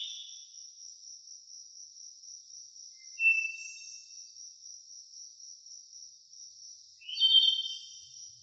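A cricket's steady, high-pitched trill. Over it a songbird gives a short call about three seconds in and sings a louder phrase near the end.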